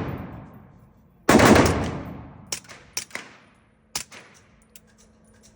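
Suppressed MAC-11 machine pistol firing a short full-auto burst of about half a second, about a second in, with a long fading echo. A few separate sharp cracks follow.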